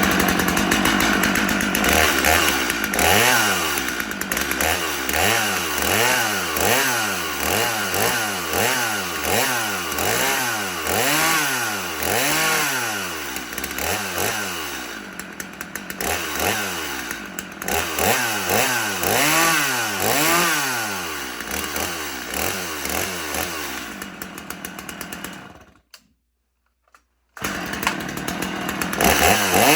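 Stihl MS 250 two-stroke chainsaw, warmed up, running and being revved over and over, the engine rising and falling in pitch about once a second. Near the end the sound drops out for about a second and a half, then the saw runs again.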